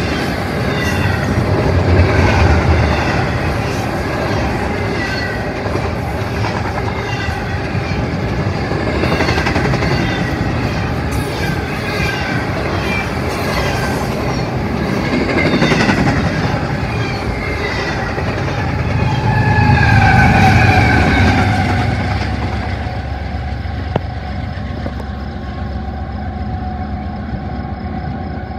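Double-stack container freight train rolling past on the rails, wheels clattering with intermittent high squealing tones. The noise dies down toward the end as the last cars go by.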